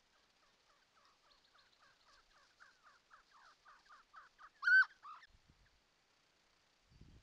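Mountain quail calling: a quick series of short downward notes, about four a second, growing louder, then one loud call and a softer one about five seconds in.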